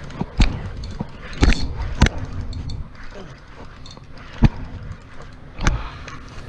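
Irregular sharp knocks and bumps, about six of them, as fishing gear is handled against a boat's rail, over a low steady rumble.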